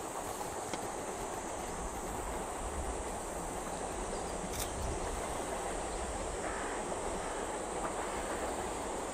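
Steam locomotive C57 180 working toward the listener as a steady, even rumble and hiss, growing slightly louder.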